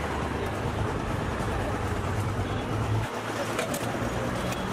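Steady street traffic noise with a low engine rumble that eases about three seconds in, mixed with liquid pouring into a plastic jug.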